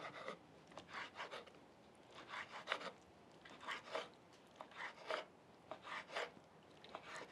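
Chef's knife chopping cooked tripe on a wooden cutting board: faint knife strokes in short clusters about once a second.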